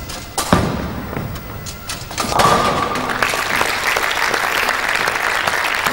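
A bowling ball rolls down the lane and a pin clatters about two seconds in as the 10-pin spare is converted. The crowd then applauds steadily.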